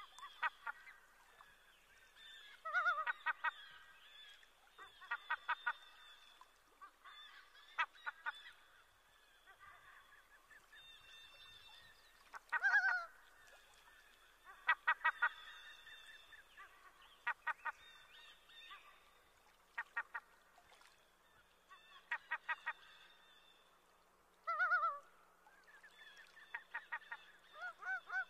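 Water birds calling over and over: runs of short, quick notes every two or three seconds, a few with longer calls that bend down in pitch, over a faint steady chorus of distant birds.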